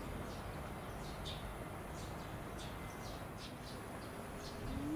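Small birds chirping: short, high chirps repeating every half second or so over a steady low outdoor background. A rising tone begins just at the very end.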